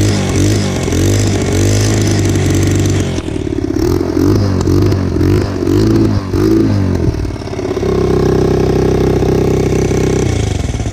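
Dirt bike engine running with its throttle blipped repeatedly, then held at a steady higher speed before dropping back near the end. The exhaust still leaks at the header gasket, which the owner hears up by the engine.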